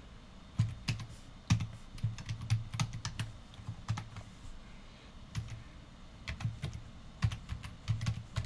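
Typing on a computer keyboard: a quick, irregular run of keystroke clicks as text is entered, with brief pauses between bursts.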